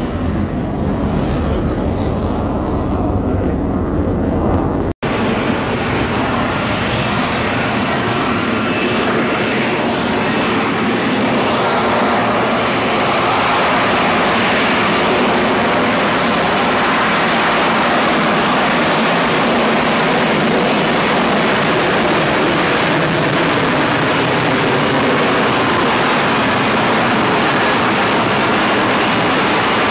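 F-35B Lightning II jet roaring steadily as it hovers in for a vertical landing, loud and full, building up over the first several seconds. It is preceded by a deeper rumble that cuts off abruptly about five seconds in.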